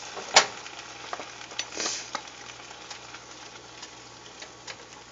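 Asparagus sizzling in a frying pan with garlic sauce just added. A sharp knock about half a second in, then a plastic spatula tapping and scraping against the pan as the contents are stirred.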